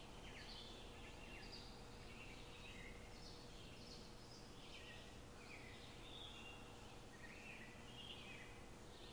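Faint birds chirping in a steady stream of short calls, over a low, steady background hum.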